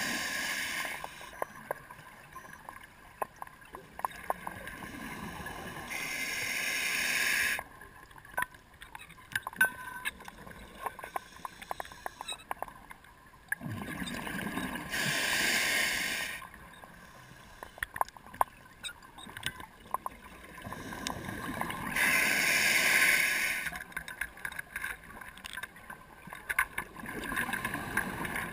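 A scuba diver's exhaled bubbles rushing from the regulator in bursts about every seven seconds, with each breath heard underwater. Faint scattered clicks come between the breaths.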